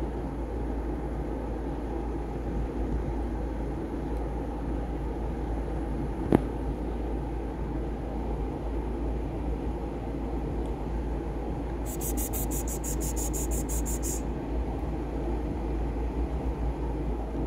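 A steady low rumble of background noise, with one sharp click about six seconds in and a rapid high ticking, about seven ticks a second, lasting about two seconds from roughly twelve seconds in.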